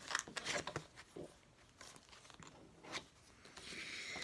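Game cards being handled: a quick run of snaps and rustles in the first second, then a few single clicks as cards are turned over and set down.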